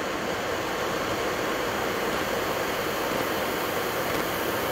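Steady, even rushing noise on an airliner's flight deck on final approach: airflow over the aircraft and the ventilation.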